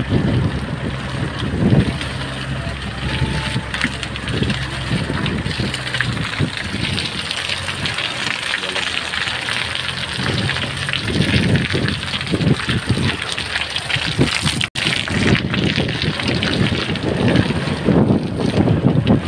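4x4 vehicle driving over a rutted dirt road, heard from inside the cabin: the engine running under the steady noise of the tyres on rough ground, with repeated low thumps as the vehicle bounces over the ruts. The sound cuts out for a moment about fifteen seconds in.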